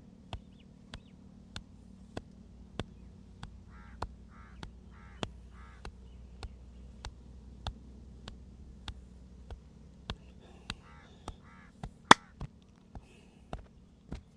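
Steady rhythm of sharp hand slaps from a percussive head and back massage, about one and a half a second, with one louder crack near the end. Crows caw in short runs twice.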